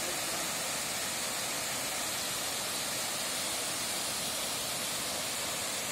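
Waterfall: a steady, even rush of falling water, a bright hiss that holds constant without a break.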